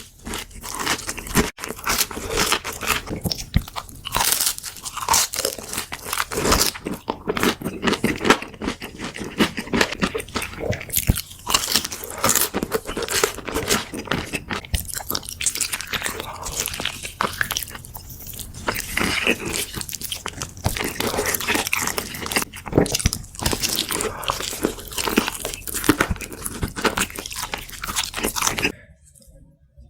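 Close-up crunching and chewing of crispy fried chicken: dense, irregular crackles of a crunchy coating being bitten and chewed, breaking off briefly near the end.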